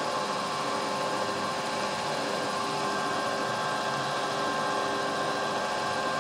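Metal lathe running steadily with a steady whine, its cutting tool deburring the inner edge of the spinning workpiece's bore.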